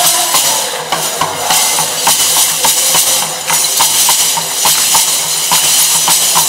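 Traditional Rwandan dance music played by live percussion, with sharp drum strikes keeping a steady beat of about three a second under a constant hiss.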